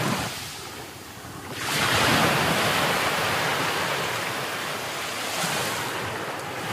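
Rough monsoon sea surf breaking on a beach. One wave crashes about two seconds in, then washes up the shore and slowly fades.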